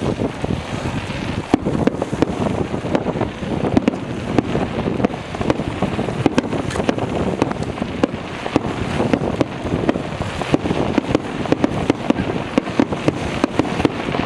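Fireworks going off in rapid succession: many sharp cracks and bangs, irregular and overlapping, over a low rumble. Wind buffets the microphone throughout.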